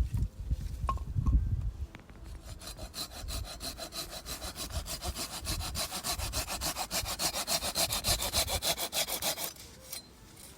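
Hand saw cutting through wood, about five quick, even rasping strokes a second for roughly seven seconds. Before the sawing starts there are a few low thumps.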